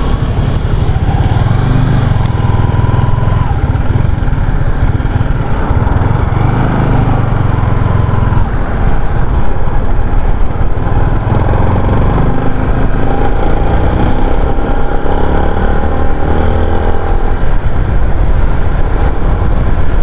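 Motorcycle engine running while riding, under heavy wind rumble on the microphone. The engine note shifts in pitch in the second half.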